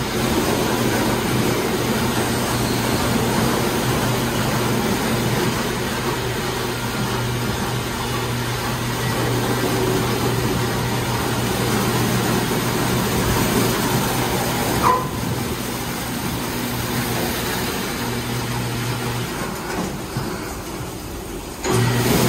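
Ryko R-784 rollover car wash running, a steady mechanical hum with the noise of its cloth brushes spinning against a car. There is a single sharp knock about fifteen seconds in. The machine quietens a little around twenty seconds, then comes back on loud near the end.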